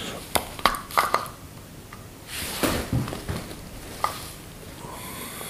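Small metal parts and a screwdriver being handled on an LPG reducer: a few sharp clicks and clinks in the first second and a half and another about four seconds in, with a short stretch of rustling handling noise in between.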